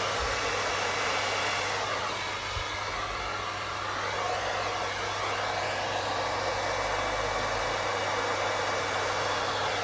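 Handheld hair dryer running steadily with an even blowing noise and a low hum, used to blow wet acrylic paint outward across the canvas in a Dutch pour.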